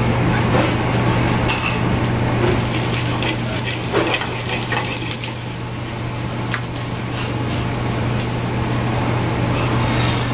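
Restaurant kitchen noise: a steady low hum over an even hiss, with scattered clinks and knocks of pans and utensils, the sharpest about four seconds in.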